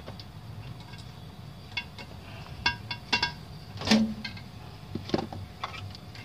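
Rubber anode cap and its wire clip being worked loose and pulled off a CRT television's picture tube after the high voltage has been discharged: a series of small clicks and scrapes, the loudest click about four seconds in.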